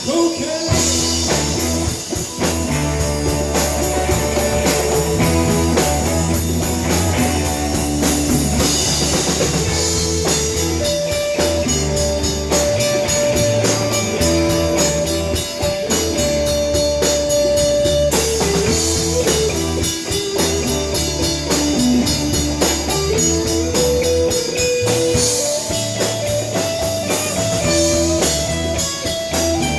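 Live blues-rock band jamming: an electric guitar plays a lead line with long held notes and slides over a steady bass and drum kit.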